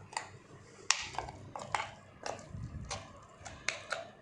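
Spoon scraping and knocking against a mixer grinder jar and bowl as thick ground ginger garlic paste is scooped out: a string of irregular clinks and taps.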